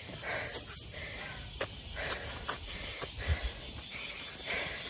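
Steady high insect drone with a few soft footsteps of a runner walking on asphalt.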